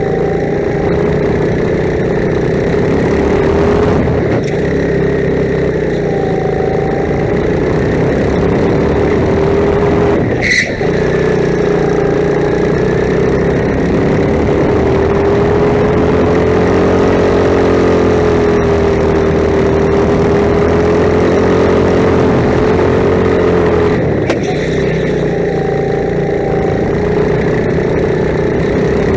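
Rental go-kart engine running hard close by, its note rising and falling slightly with the throttle through the corners of a lap, with a brief sharp knock about ten seconds in.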